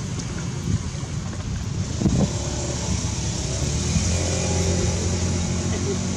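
An engine running steadily over a rushing background noise, its low hum growing stronger from about four seconds in.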